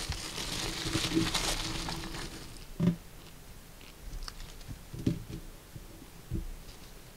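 Crinkling of a food wrapper being handled and folded in the hands, lasting about two and a half seconds. Then a sharp thump, the loudest sound, and a few softer knocks later on.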